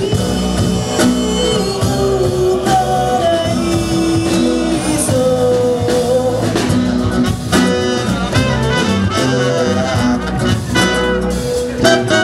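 Live jazz band playing: drum kit, electric bass and trumpet, with a woman singing.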